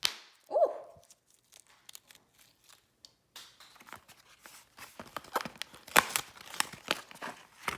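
Crinkling, crackling and sticky clicking as a slime-filled Pop Pops Pets toy and its slime are squeezed and worked by hand. The crackles come thick and fast in the second half, loudest about two thirds of the way through.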